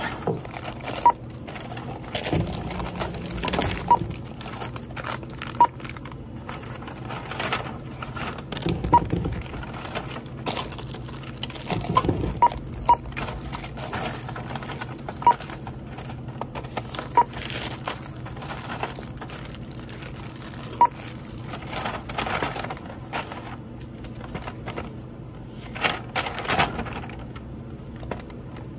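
Checkout barcode scanner beeping as items are scanned: about ten short single beeps at uneven intervals, a few of them close together about twelve seconds in. Between the beeps come the rustle of paper bags and the clatter of goods being handled.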